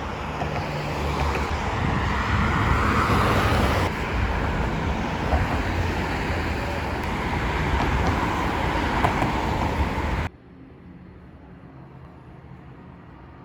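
Steady road-traffic noise with a low rumble, cut off abruptly about ten seconds in, leaving faint room tone.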